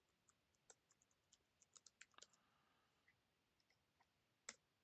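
Faint computer keyboard typing: a quick run of key clicks over the first couple of seconds, then a few scattered presses, and one louder key press near the end.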